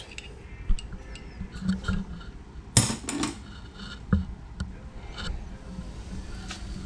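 Metal hand tools clinking and knocking against metal in scattered taps, with one louder clank about three seconds in.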